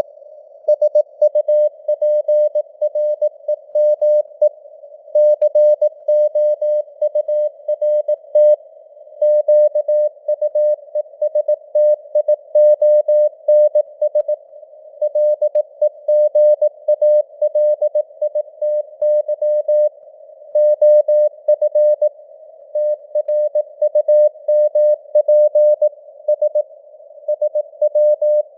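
Morse code (CW) at 18 words per minute: a single steady mid-pitched tone keyed on and off in dots and dashes, with short gaps between words. It sits in a narrow band of simulated radio hiss, and the signal strength wavers slightly, simulating fading (QSB).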